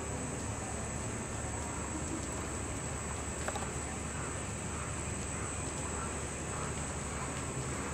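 Steady background noise of a large indoor arena: a low hum and hiss with a thin, steady high-pitched whine, and one faint click about three and a half seconds in.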